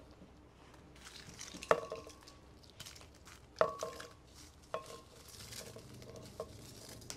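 Glass blender jar clinking as roasted tomatoes are tipped into it from a clay plate. There are four short knocks against the glass, each ringing briefly, spaced a second or two apart.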